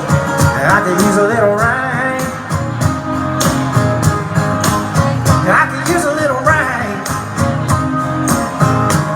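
Country music: guitar chords over a steady drum beat, with a wavering melodic line that comes in twice, about a second in and again about five and a half seconds in.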